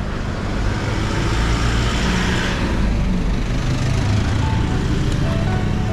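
A motor vehicle passing on the road, its tyre and engine noise swelling and fading around two seconds in, over a steady low rumble.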